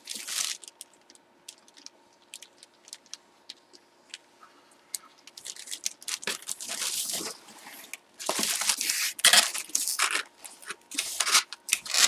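Packaging being handled: scattered small clicks and taps, then louder rustling and crinkling in bursts over the second half, like plastic wrap being crumpled or torn.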